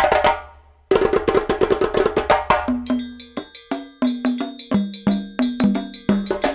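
Background music: a quick, steady percussion beat with pitched notes, dropping out for about half a second near the start.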